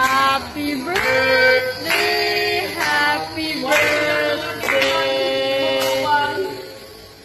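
A song with a female singing voice, held sung notes over quiet backing; background music that fades out near the end.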